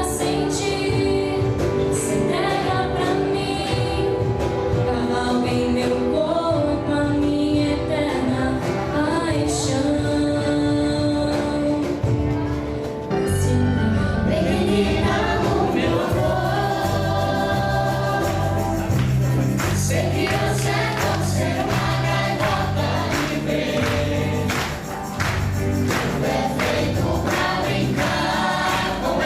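A choir singing a song with instrumental accompaniment. About 13 seconds in, a heavier bass line and steady beat come in.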